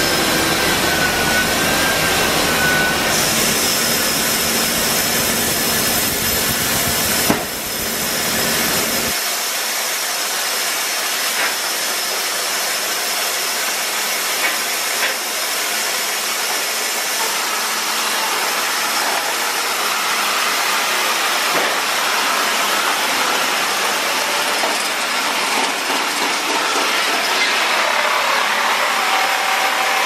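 Sawmill machinery running: a loud, steady noise from the saws and their drive. A thin wavering whine sounds over it for the first few seconds and a sharp knock comes about seven seconds in; about nine seconds in the deep rumble cuts out, leaving a higher, hissing run.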